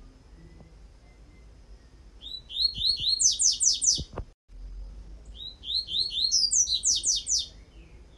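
Caged coleiro (double-collared seedeater) singing its tui-tui song type, two phrases about two seconds each. Each phrase opens with a quick run of repeated rising notes and climbs into higher, faster notes, with a brief break between the phrases.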